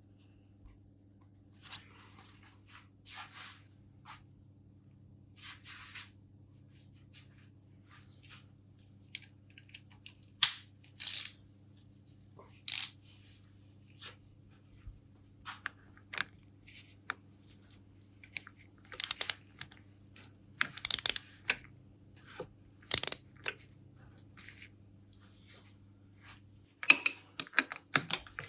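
Scattered sharp clicks and short metallic handling noises from a socket wrench and torque wrench as a motorcycle flywheel bolt is tightened. The clicks come in clusters that grow denser towards the middle and end. A faint steady hum runs underneath.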